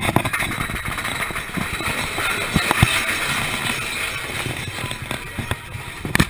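Big Thunder Mountain Railroad mine-train roller coaster running along its track: a steady rattle and rush of the cars with scattered knocks and clacks.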